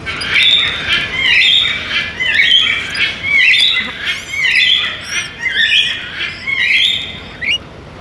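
Blue-and-yellow macaw squawking: a rapid series of loud calls, about two a second, that stops shortly before the end.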